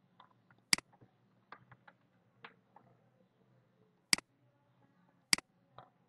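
Computer mouse clicking sharply three times, with softer keyboard key taps in between.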